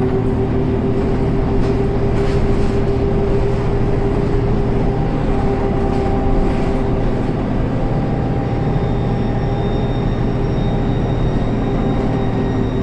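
Inside a MAN Lion's City city bus under way: steady running noise from the engine and driveline, with a steady whine from the 4-speed Voith automatic gearbox, a gearbox noise the owner calls strange. A fainter, higher whine comes in about two thirds of the way through.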